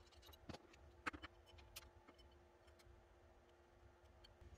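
A few faint metallic clicks and taps as steel spring-compressor yokes, bolts and a hex key are handled on the compressor rod, over a low steady hum.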